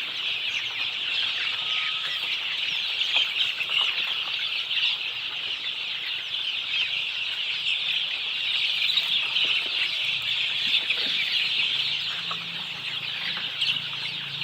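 A flock of desi chickens calling: dense, overlapping high chirping and clucking that goes on without a break.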